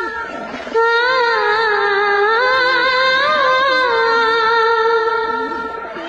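Music: a hummed or sung vocal melody in long held, wavering notes. It comes in about three-quarters of a second in and breaks off just before the end.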